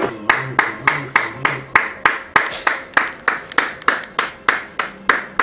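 A steady rhythm of sharp hand claps, about three a second, with three short low bass notes in the first second and a half.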